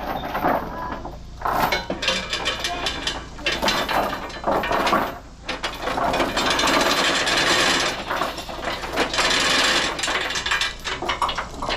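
A ratchet clicking rapidly and repeatedly, with metallic clatter, as a tie-down mechanism is worked.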